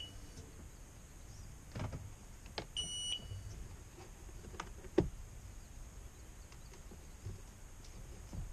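Short high electronic beep from a 2000 Sea-Doo GTX RFI's electronics about three seconds in, as the ski is powered up for the fuel pump to engage. Light clicks and knocks sound around it, and the engine is not cranking.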